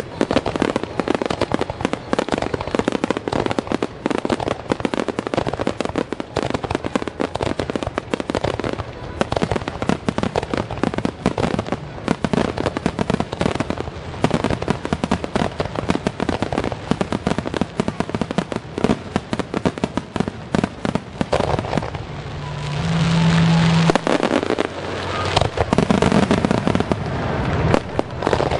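Aerial firework shells in a finale barrage: a dense, continuous stream of bangs and crackling, many reports a second. Near the end the separate bangs merge into a louder rushing swell.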